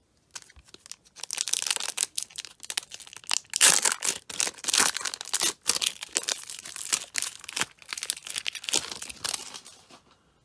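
A 1991 Fleer Ultra football card pack wrapper being torn open and crinkled by hand, a long run of crackling and tearing that is loudest about a third of the way in and stops just before the end.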